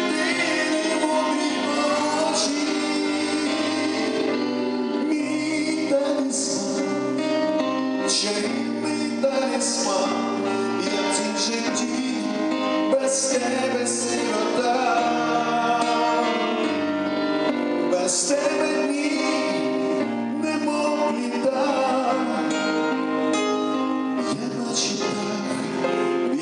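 Live song: male voices singing over electric keyboard and electric bass guitar.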